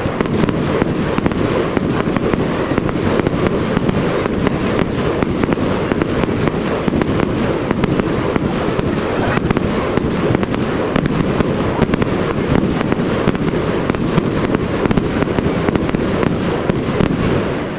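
Fireworks display: a dense, unbroken barrage of bangs and crackling, with many sharp cracks following one another throughout.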